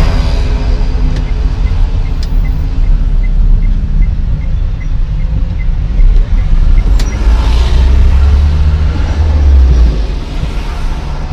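Car engine and road rumble heard inside a moving taxi in town traffic, swelling for a few seconds past the middle and easing off near the end. A faint, regular ticking runs underneath, a little over two ticks a second.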